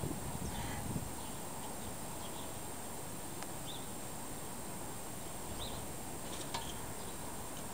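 Steady outdoor background noise with faint short chirps every second or two and a constant high hiss. Two light clicks sound about three and a half and six and a half seconds in.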